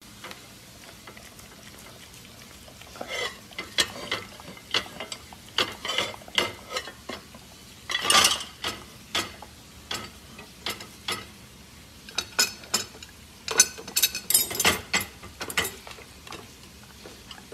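Black Labrador puppy licking dirty plates in the lower rack of an open dishwasher: an irregular run of quick, wet licks and smacks, loudest about eight seconds in and again around fourteen.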